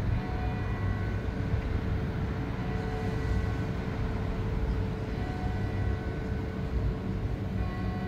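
Electronic civil-defence siren (DS977) sounding the steady, single-pitch test tone of the monthly alarm test. Strong wind rumble on the microphone lies under it.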